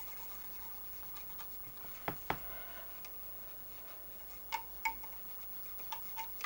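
Dry cotton bud rubbing over the read/write head of a Commodore 1541-II floppy disk drive during a head clean: a faint scratching, with two sharp clicks about two seconds in and a few lighter ticks later.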